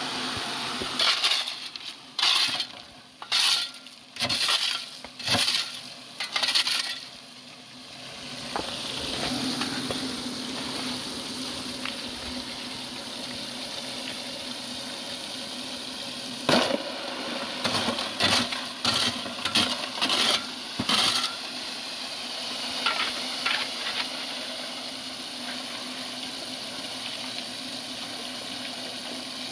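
Hard clinks and scrapes, like stones or gravel knocking together, in two runs of quick strikes: one through the first seven seconds and another in the middle. A steady rushing hiss runs underneath.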